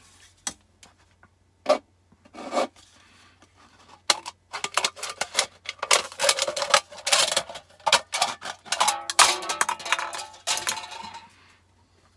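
Empty aluminium beer can being cut open: a few separate clicks and crinkles, then about seven seconds of rapid crunching and crackling as the thin metal is cut and bent, stopping about a second before the end.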